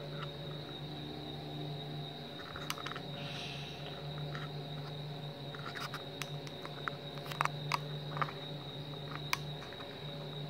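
Steady low hum with a thin, high-pitched whine over it, broken by scattered sharp clicks and knocks from the phone being handled, several of them close together about seven to nine seconds in.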